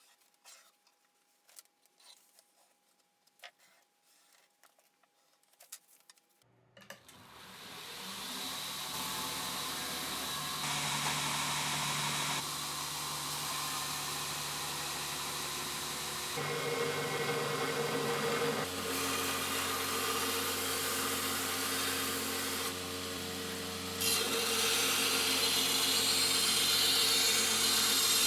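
A few faint clicks, then a belt grinder starts about six seconds in and runs with steel being ground against the belt. The sound jumps abruptly in level and tone several times and is loudest and hissiest near the end.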